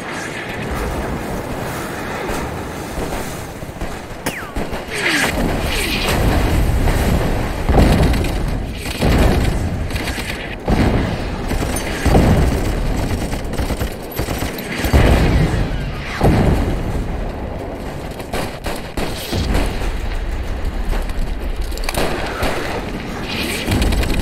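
Battle sound effects of a beach assault: for the first few seconds the steady noise of breaking surf, then a long series of heavy explosions, one every second or two, mixed with gunfire.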